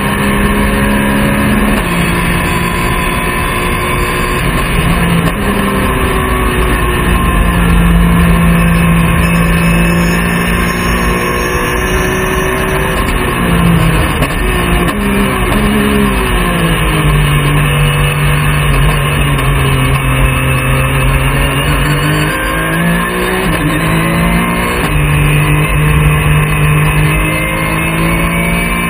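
Porsche 911 GT3 Cup race car's flat-six engine at racing revs, heard inside the cabin, with wind and road noise. The engine note drops and climbs again several times as the car brakes and shifts gear through the corners.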